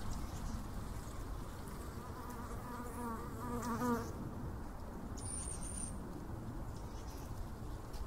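A flying insect buzzes close past for about two seconds, its pitch wavering, swelling and then cutting off. Behind it runs a steady low rumble of distant road traffic, and a brief high-pitched chirp comes about five seconds in.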